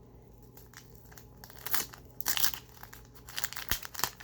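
Paper wrapper of a baseball card pack being torn open and crinkled by hand, in several short crackly bursts after a quiet start.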